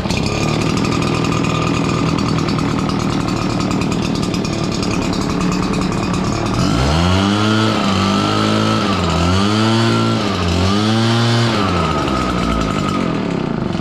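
Redmax EBZ7500 backpack leaf blower's two-stroke engine running steadily, then revved up and down several times about halfway through before settling back.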